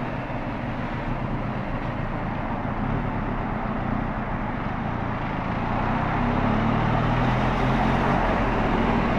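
Benelli Leoncino 500 parallel-twin engine running at low speed in heavy traffic, over steady wind and tyre noise. About six seconds in the engine note grows louder as the bike picks up speed.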